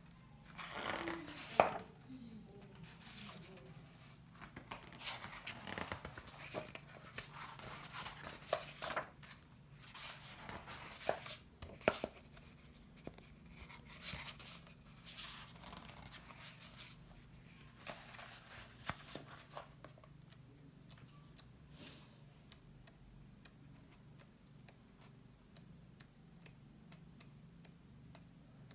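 Thick, glossy pages of a large hardcover book being turned by hand: paper swishing and sliding, with sharp clicks and taps, busiest over the first two-thirds and then thinning to scattered faint ticks.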